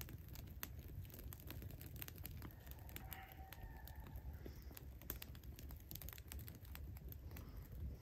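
Freshly lit kindling fire of dry grass and small sticks crackling faintly with many small irregular pops as it catches.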